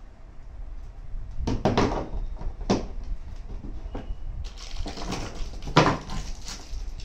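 Steel electrode rods and cables being handled in a hard plastic carrying case: several sharp knocks and clatters, the loudest near the end, with a rustling hiss from about halfway in.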